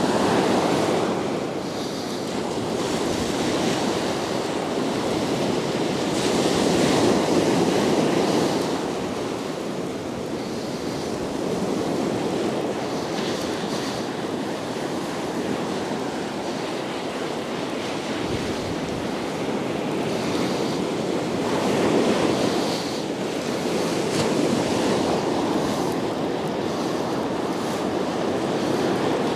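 Surf breaking on a sandy beach: a steady wash of waves that swells louder several times as bigger waves break and run up the sand.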